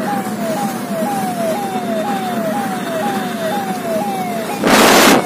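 Police vehicle siren sounding a repeating falling tone, about two sweeps a second, heard from inside the vehicle over road noise. A loud burst of rushing noise about five seconds in.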